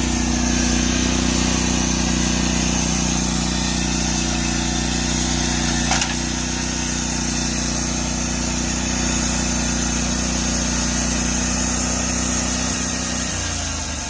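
Norwood portable band sawmill's engine running steadily under throttle while the blade makes a squaring cut through a log. Near the end its pitch drops as it is throttled back when the cut is finished.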